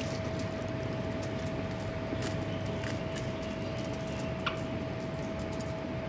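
Faint eating sounds, chewing and small mouth or finger clicks with one sharper click about four and a half seconds in, over a steady background hum that carries a constant thin tone.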